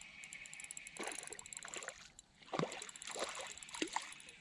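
Short, irregular splashes of water with a few light knocks, as a hooked crappie is brought up to a small jon boat.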